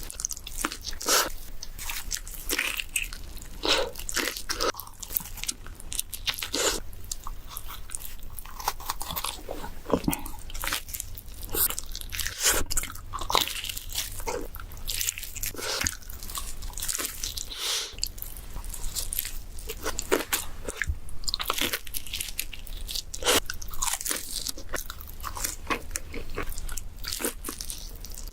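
Close-miked bites into pizza, the crust crunching and crackling, with chewing, one bite after another in quick succession throughout.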